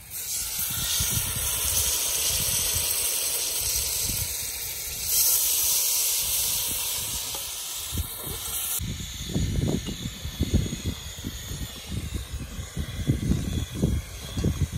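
Steady loud hiss of a gas burner on a camping gas cylinder under a cooking pot, getting louder about five seconds in. It cuts off suddenly after about nine seconds, and low gusts of wind buffet the microphone instead.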